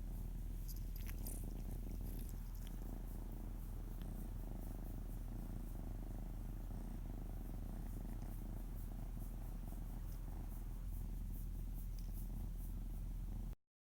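Ocicat purring steadily and continuously while his belly is stroked, the purr stopping abruptly near the end.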